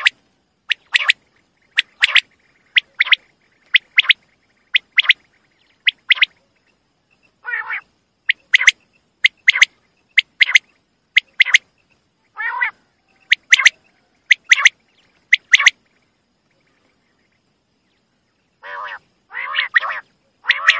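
Common quail calling: short, sharp high notes in quick pairs and threes, repeated about once a second. A few harsher, lower calls break in, and there is a pause of about three seconds near the end before the calling resumes.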